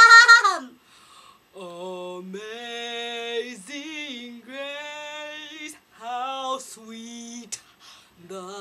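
A woman belts a loud, high sung note with vibrato that breaks off under a second in. After a short gap, a quieter, lower voice sings a run of held notes that step between steady pitches.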